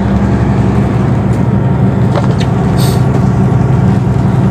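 Truck engine running steadily at road speed, heard from inside the cab, with tyres hissing on the rain-wet road.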